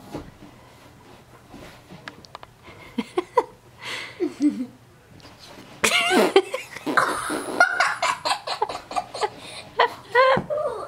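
People laughing hard in quick bursts of giggles, starting suddenly about six seconds in; before that, only a few faint clicks and small sounds.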